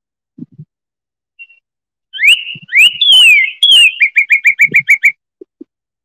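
Recorded northern cardinal song: starting about two seconds in, a few loud slurred whistles, the first rising and the next falling, then a fast run of about eight short repeated notes.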